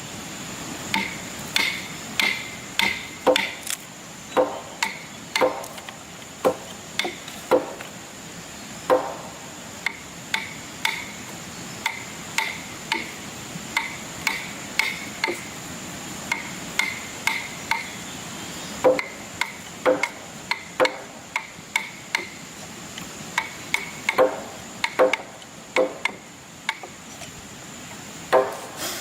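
Hammer blows on wood, some ringing briefly as they drive nails, struck about once or twice a second in runs with short pauses. A steady faint high-pitched tone runs underneath.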